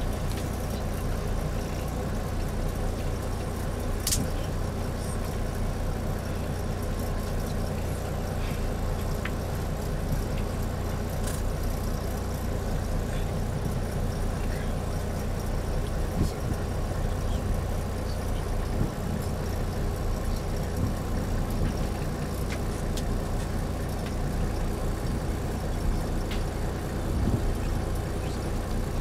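Safari vehicle driving on a dirt track, heard from inside the cabin: a steady low rumble of engine and road noise, with a few brief clicks and rattles.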